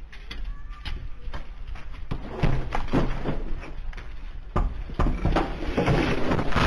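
Irregular knocks and thumps over a noisy clatter that grows louder in the second half.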